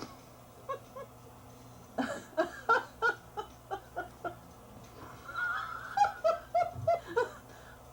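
Recorded geese honking, a dense run of short calls starting about two seconds in, played back from a sound-effects CD.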